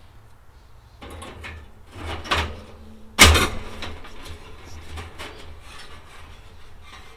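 Metal parts of a Kero-Sun Omni 85 kerosene heater being handled and set back in place: a few scrapes and rattles, then one loud clunk about three seconds in.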